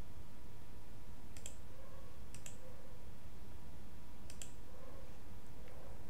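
Several sharp computer mouse clicks, some in quick pairs, over a low steady background hum.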